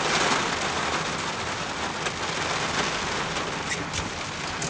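Rain pattering steadily on a vehicle, a wide rushing hiss with scattered drop taps, easing slightly over the few seconds.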